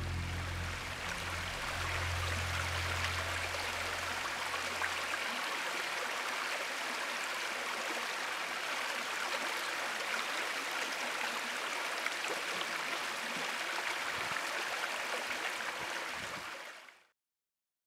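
Small rocky woodland brook splashing and trickling over stones in little cascades, a steady rush of water that fades out near the end.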